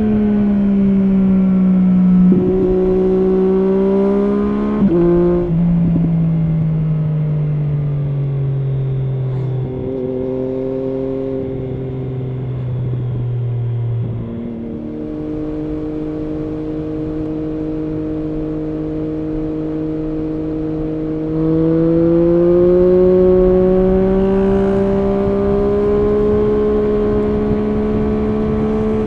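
Triumph Street Triple S three-cylinder engine through an SC Project SC1-R slip-on exhaust with its dB-killer fitted, heard from the rider's position. The engine note falls as the bike slows, with a few sudden jumps up in pitch as it changes down through the gears. It then holds a steady note, and rises again as the bike accelerates, about two-thirds of the way in.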